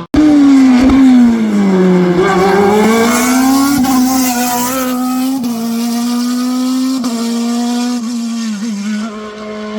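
Hillclimb race car engine running loud at high revs; its pitch drops over the first two seconds, climbs again, then holds fairly steady.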